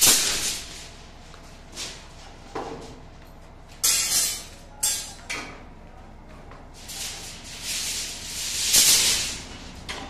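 Steel reinforcing bars rattling and scraping against each other as they are handled. It comes in several noisy bursts of a second or less, with the longest and loudest near the end.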